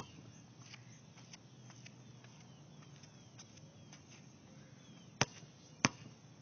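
A basketball bouncing on an outdoor court: one bounce at the start, then two sharp bounces about half a second apart near the end, the dribbles before a free throw.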